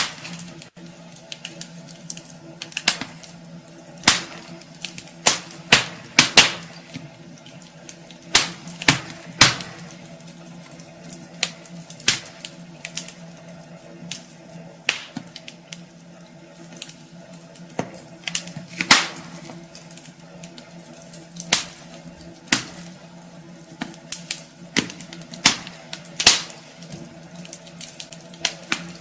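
Wood fire burning in a fireplace, crackling with irregular sharp pops, some of them loud, over a faint steady low hum.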